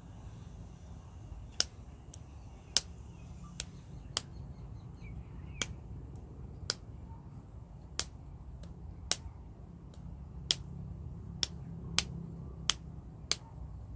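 A series of sharp, short clicks, about a dozen at uneven intervals of roughly a second, over a steady low rumble.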